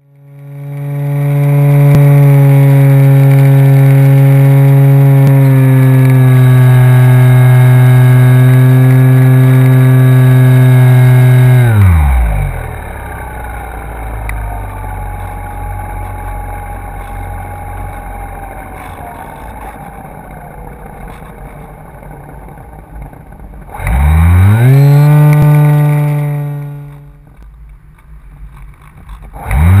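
RC plane's motor and propeller, heard from the onboard camera, running steadily at high throttle with an even drone. About twelve seconds in, the throttle is cut and the pitch drops away, leaving a quieter rush of air while the plane glides. It spools back up near the 24-second mark, cuts again a few seconds later, and winds up once more at the very end.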